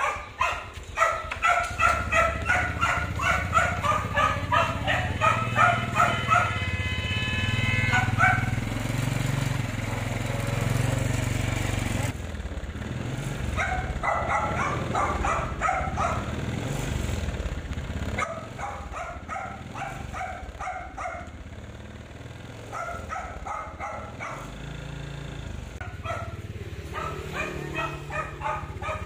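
A dog barking in repeated bouts of quick barks, two or three a second, over a low steady rumble.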